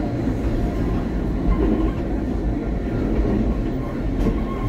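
Electric rack-railway train of the Corcovado line running downhill, a steady rumble and rattle of the moving car.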